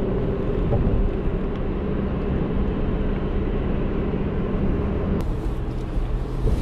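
Steady road and engine noise inside a moving car's cabin, with a slight change in its texture about five seconds in.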